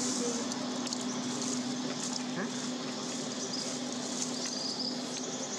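Steady background noise: an even hiss with a constant low hum, and a few faint high chirps near the end.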